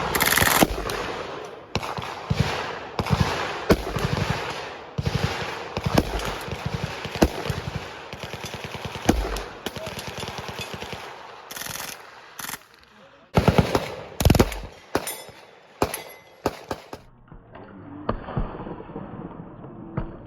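Gunfire on a shooting range: bursts of automatic fire mixed with single shots from several guns, with the heaviest bursts about two-thirds of the way through. Near the end the shooting gives way to a quieter, duller sound.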